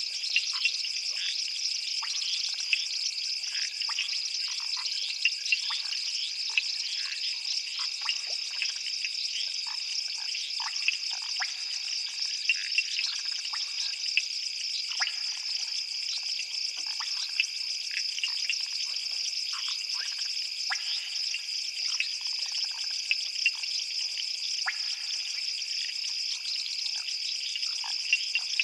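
Night chorus of frogs and insects: a steady high-pitched trill, with many short frog calls over it.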